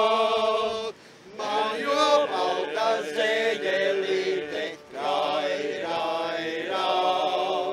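Men's folk singing in the Latvian Suiti drone style: a chanted song in three phrases with short pauses between them.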